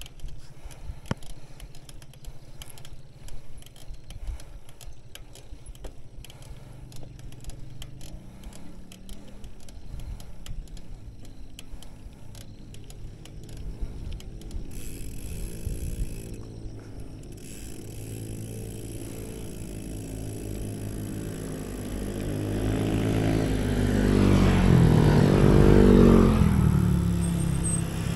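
Light rattling clicks as the bicycle rolls over a concrete road, then a motorcycle engine comes near over the last ten seconds. It grows louder, with its pitch rising and then falling, and is loudest about two seconds before the end.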